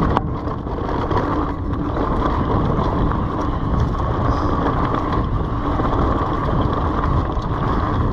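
Trail-riding noise from an Orbea Wild FS H25 electric mountain bike: wind on the microphone and tyres rolling over a leaf-covered dirt trail, steady throughout, with a constant hum running under it.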